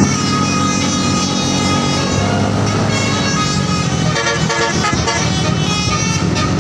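Tour bus telolet horn playing a quick run of changing musical tones over the bus's engine running.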